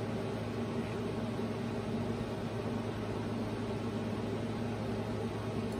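Steady low hum with hiss, an even background noise with no distinct event.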